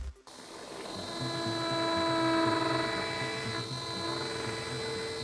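Implant surgical handpiece running the 3 mm drill into hard bone: a steady motor whine with a high tone, swelling over the first couple of seconds and then easing off slightly.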